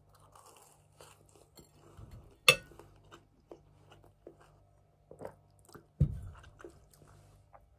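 Chewing a bite of sugar-coated twisted doughnut (kkwabaegi), with small soft mouth clicks. About two and a half seconds in, a metal fork clinks sharply on the plate, and a low thump comes about six seconds in.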